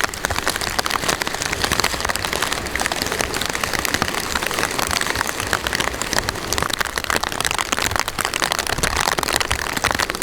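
Steady rain falling, with dense fine drop ticks close to the microphone.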